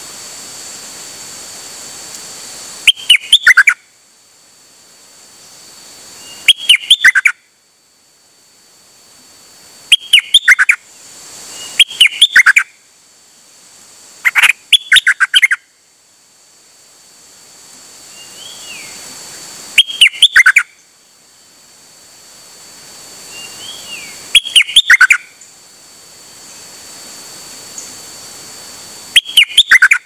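Caged nok dok taeng songbird singing short, loud, bubbly phrases, about eight of them, one every three to four seconds. Fainter single falling calls from another bird come in between some phrases, over a steady high insect drone.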